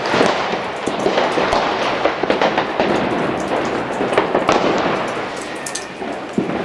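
Many firecrackers and fireworks going off all around: a dense, continuous crackle with frequent sharp pops and bangs.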